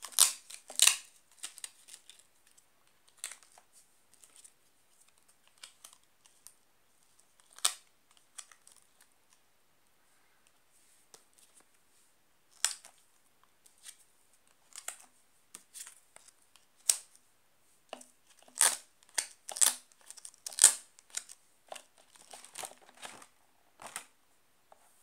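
Laminated picture cards being picked up, handled and pressed onto a card board: short scattered scraping and crinkling noises, with a cluster of louder ones late on, and a page of the binder turning near the end.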